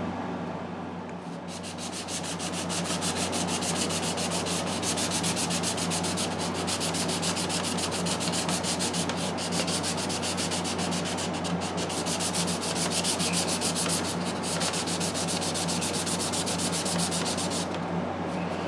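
A brush scrubbing a plastic model-kit part in quick, even back-and-forth strokes, several a second, to strip off soaked oil paint. It starts about a second in and stops shortly before the end, over a steady low hum.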